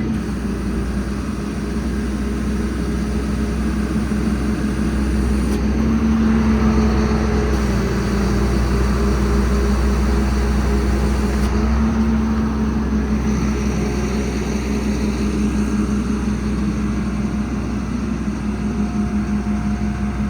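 Caterpillar C7 diesel engine running with the PTO engaged, driving the hydraulic pump while the truck's hydraulic outriggers extend and lower. The steady engine-and-pump hum shifts in pitch and loudness a few times.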